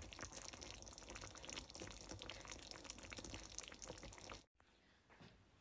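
Faint wet crackling of many small clicks, close to silence, that cuts off suddenly about four and a half seconds in.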